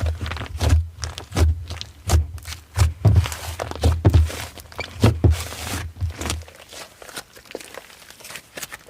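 Slime being handled and squished, giving a quick run of sticky clicks and pops, each with a soft thud, that stops about six and a half seconds in and gives way to fainter, sparser clicks.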